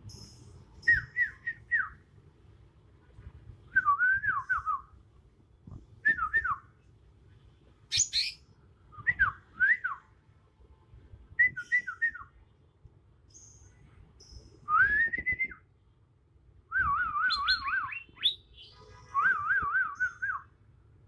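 Young male green leafbird (cucak ijo) singing its natural song, with no mimicked notes yet: short whistled phrases of quick falling notes every second or two. There is one harsh high note about eight seconds in, and the phrases turn into longer warbling trills near the end.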